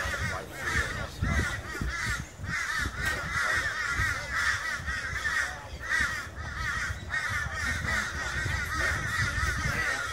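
A flock of birds calling nonstop: a dense chatter of quick, overlapping rising-and-falling calls.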